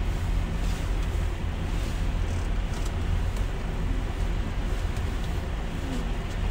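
Semi-truck diesel engine running with a steady low rumble as the tractor backs toward a trailer to hook up.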